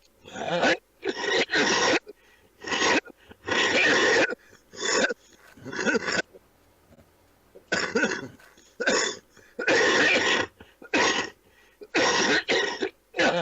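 A man coughing in a long fit of about a dozen coughs, in two runs with a pause of over a second about six seconds in.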